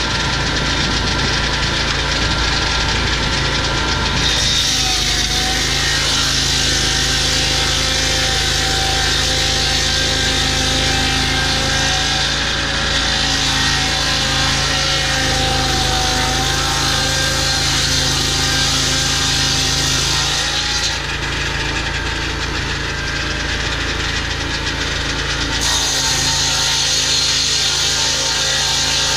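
Portable swing-blade sawmill running under load, its engine droning steadily while the circular blade cuts through a log with a bright hissing rasp. The cutting hiss eases for a few seconds about two-thirds through, then picks up again near the end.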